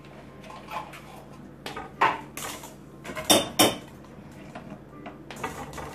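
Stainless steel mixing bowl knocked and rattled by a baby playing with it, a plastic spatula and a plastic lid clattering against the metal. Several irregular clanks with a metallic ring, the loudest about two seconds in and a quick pair about three and a half seconds in.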